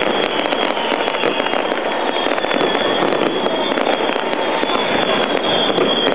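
Aerial fireworks bursting overhead in a continuous crackle of many sharp pops, with no pause.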